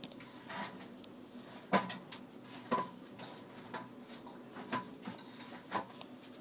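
Pencil and drawing compass working on paper: a string of short taps and scratches, roughly one a second, as short marks are pencilled in. The sharpest tap comes about two seconds in.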